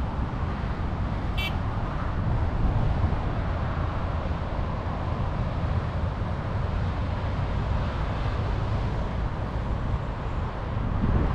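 Wind buffeting the microphone in a steady, gusty low rumble, with surf breaking on the beach beneath it. A single short high click sounds about a second and a half in.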